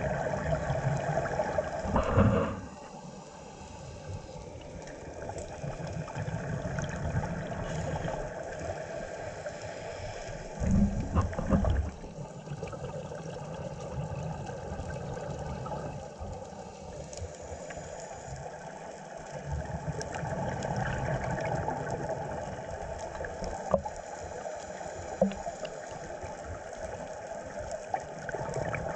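Underwater sound of a scuba diver breathing through a regulator: exhaled bubbles come in bursts, a loud one about two seconds in and another about eleven seconds in, with weaker breaths between, over a steady hiss. A couple of sharp clicks sound in the last third.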